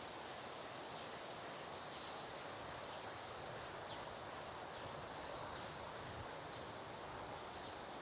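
Outdoor park ambience: a steady background hiss, with a faint, high bird call that comes back about every three seconds.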